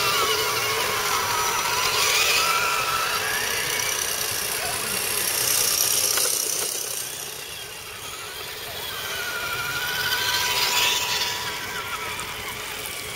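Electric motors and gearboxes of RC scale 4x4 crawlers whining, the pitch rising and falling as the throttle is worked. A few louder bursts of hiss come and go.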